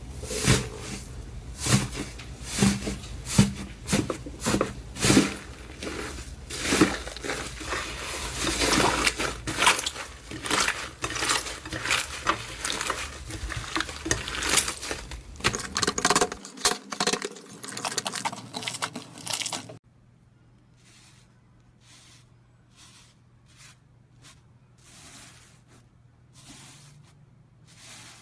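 Slime being squeezed and poked by hand, making sticky crackling clicks and pops, spaced at first and then dense and continuous. About two-thirds of the way through it cuts suddenly to a much quieter stretch of softer, sparser slime pops.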